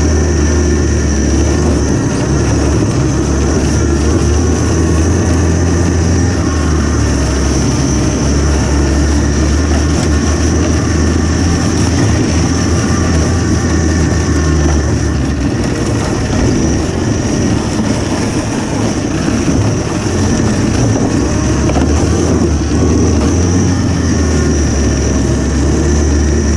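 DIY electric snowmobile with an ME1115 electric motor being ridden over snow. Its track and drivetrain give a steady, loud, low drone, with a thin, steady high whine above it.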